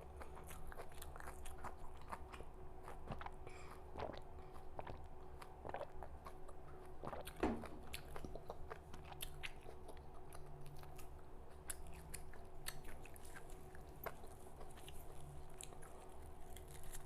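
Close-up chewing and crunching of raw red amaranth (lal chaulai) leaves, a steady run of small crisp crunches with one louder wet mouth sound about halfway through.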